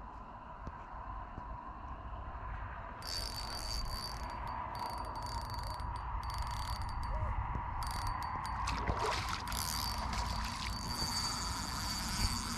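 Fishing reel ratcheting and whirring as a fish pulls line off it. The ratcheting starts about three seconds in, then stops and starts again several times.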